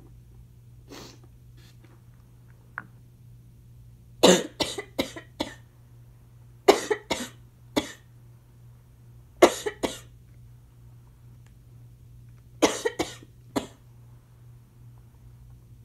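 Asthma coughing in four fits a few seconds apart, each a quick run of two to five harsh coughs.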